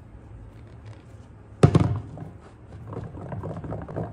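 A single heavy thunk a little before halfway, then an uneven run of small knocks and scraping.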